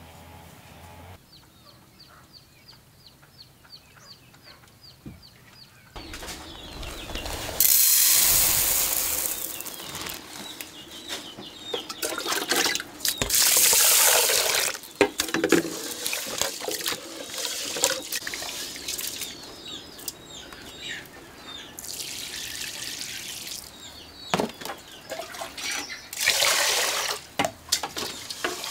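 Water running from a tap and splashing into a sink, coming in several loud gushes after a quiet start, with knocks and clatter between them.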